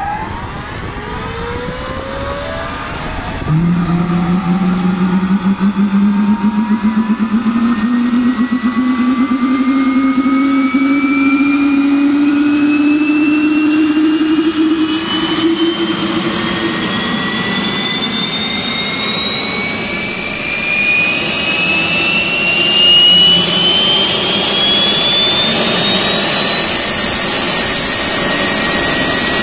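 Turbomeca Palouste gas-turbine air-start unit spooling up, the normal sound of a healthy start. Its whine climbs steadily in pitch, and a low rumble cuts in about three and a half seconds in with a jump in loudness, then fades out about halfway through while the whine keeps rising.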